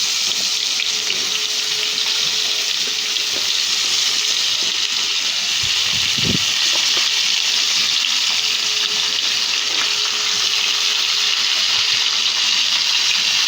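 Potato pieces deep-frying in hot oil, a steady sizzle, with a brief low thud about six seconds in.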